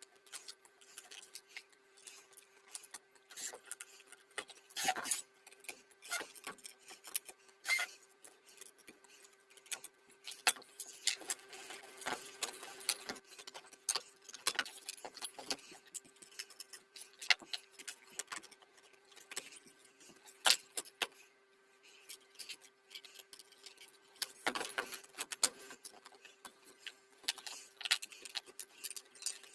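Irregular metallic clinks, taps and scrapes of hand tools and small metal parts being handled, over a faint steady hum.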